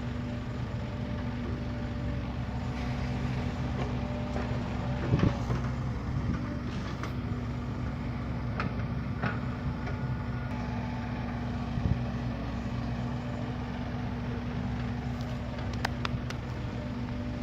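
Heavy earthmoving machine's diesel engine running steadily, with a sharp knock about five seconds in and another about twelve seconds in, and a few faint clicks near the end.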